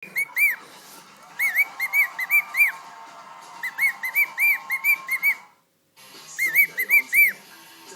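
Cockatiel singing: phrases of quick, clear whistled notes, each rising and falling in pitch, with a short break about five and a half seconds in before the notes resume.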